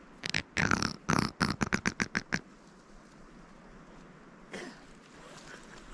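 A grouse pecking at something, a quick run of sharp taps that speeds up over about two seconds, then stops.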